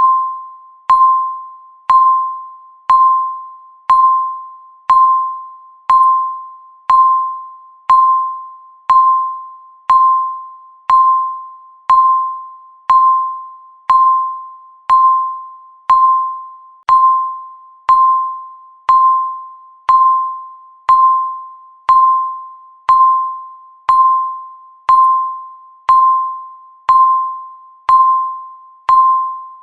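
Countdown timer beeping once a second, each beep a single clear tone that starts sharply and fades away before the next.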